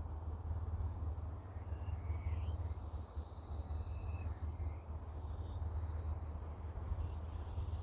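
Small songbirds chirping and trilling in the trees, several overlapping high calls with a longer buzzy trill a few seconds in, over a steady low rumble.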